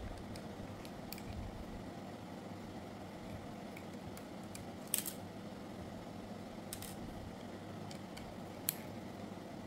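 Scattered small clicks and taps of hard clipper parts being handled during a teardown. The sharpest click comes about five seconds in and another near the end, over a faint steady hum.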